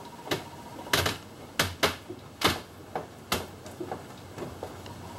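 Sharp, irregular metallic clicks and clacks from parts being handled around an engine hanging on a chain hoist, as it is worked free of the engine bay. The clicks are loudest and most frequent in the first three and a half seconds, then thin out to fainter ticks.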